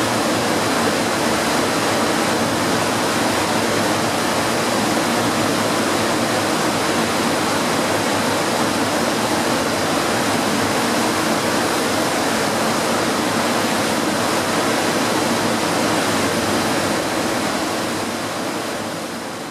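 Steady rushing water, an even unbroken roar, fading out near the end.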